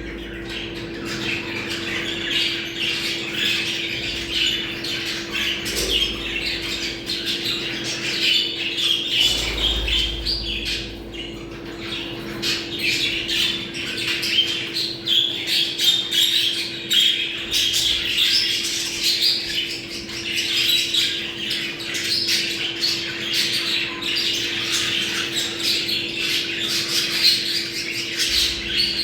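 A flock of budgerigars chattering and warbling without a break, many calls overlapping; this is the excited chatter of budgies in breeding condition. A steady low hum runs underneath.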